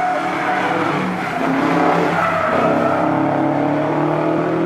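Subaru rally car's flat-four engine revving hard through a tarmac bend, its pitch rising and falling with the throttle, with some tyre squeal.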